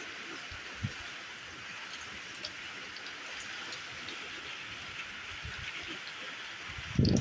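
Steady monsoon rain falling as an even hiss of drops, with a short low thump near the end.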